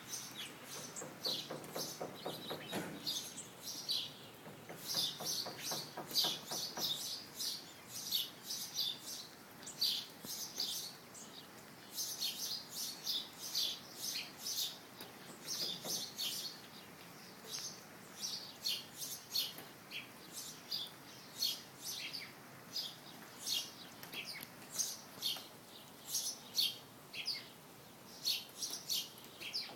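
Small birds chirping constantly in short high notes. Twice, about a second in and again around five seconds in, a northern flicker hammers a quick run of pecks into wooden house siding.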